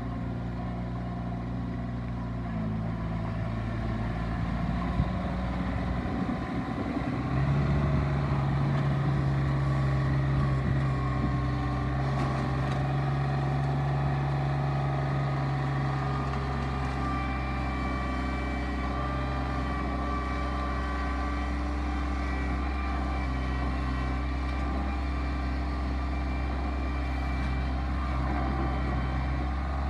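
Mahindra eMax 25 compact tractor's diesel engine running, speeding up about seven seconds in and then holding a steady higher speed.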